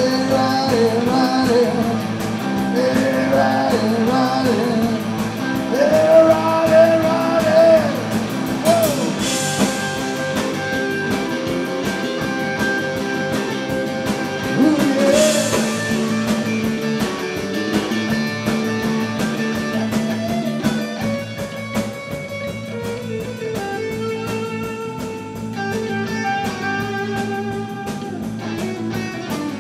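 Live rock band playing: electric guitar, bass guitar and drum kit, with a singer's voice in the first half and cymbal crashes about nine and fifteen seconds in. The last third is mostly guitar.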